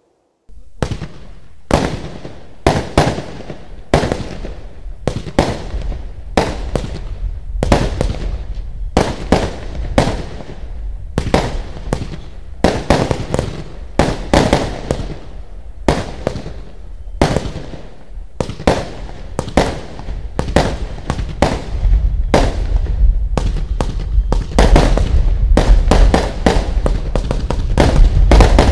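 96-shot compound firework cake firing its shots in a continuous sequence: sharp launch bangs and bursts about two a second, getting denser and louder with a heavier low rumble over the last several seconds.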